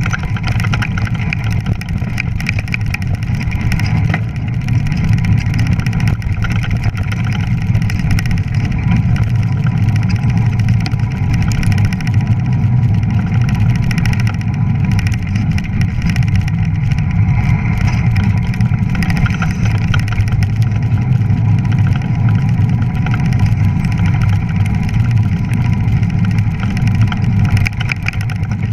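Fat bike riding fast over snow, heard from a handlebar-mounted camera: a loud, steady low rumble of fat-tyre rolling noise and wind on the microphone, with a faint steady hum above it.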